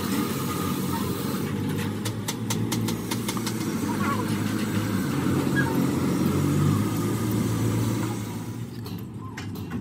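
A motor engine runs steadily, then fades out about eight seconds in. Over it come sharp metallic clicks as small valve parts are handled and fitted onto the valve stems of a cast cylinder head.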